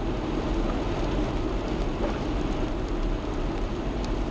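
Steady road and engine noise inside a moving car's cabin: an even low rumble of tyres and engine with no change in pace.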